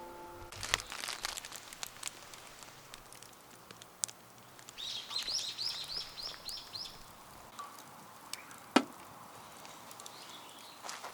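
A bird sings a quick run of about eight repeated high chirping notes in the middle, over faint rustling and handling clicks. A single sharp click near the end is the loudest sound.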